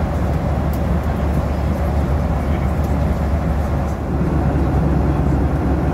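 Steady low rumble of a Boeing 737-800 heard from inside its passenger cabin, with a brief small dip about four seconds in.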